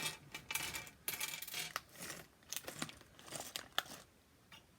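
Small slime charms clinking and rattling as a hand rummages through a bag full of them, a string of short clatters that dies down near the end.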